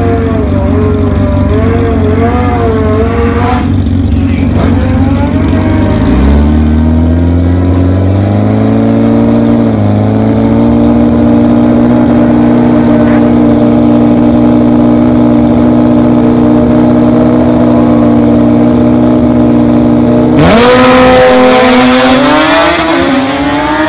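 Nitrous Suzuki Hayabusa drag bike's inline-four engine at the starting line, revving unevenly, then rising about six seconds in to a steady held rev. About twenty seconds in it launches with a sudden loud surge, its pitch climbing as it pulls away.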